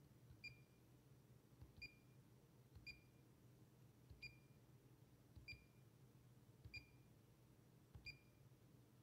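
Fluke 279 FC multimeter beeping as its range button is pressed, seven times about every 1.3 seconds, stepping through the manual ranges. Each press is a soft button click followed by a short high beep.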